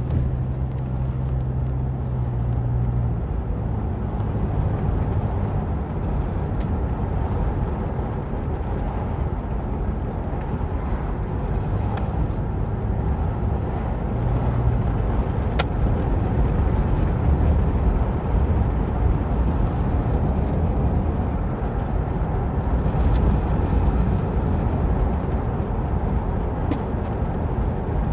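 Steady low road and engine rumble inside a moving car's cabin, with an engine hum that stands out for the first few seconds and a few faint ticks.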